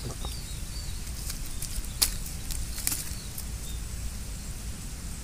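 Outdoor background with a low steady rumble, faint short high chirps in the first second, and two sharp clicks about two and three seconds in, the first the loudest.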